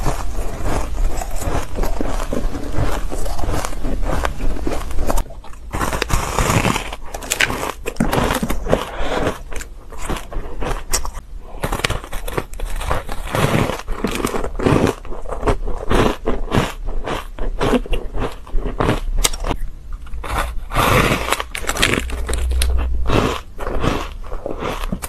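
Close-miked crunching and chewing of ice. First comes dense, continuous crunching of mouthfuls of shaved ice. From about five seconds in there are separate, crisp bites and chews of frozen ice foam.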